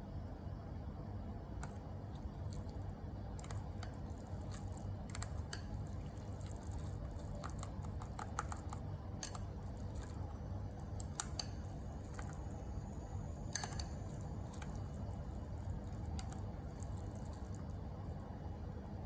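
Scattered light clicks and taps of kitchen handling, a few at a time, over a steady low hum.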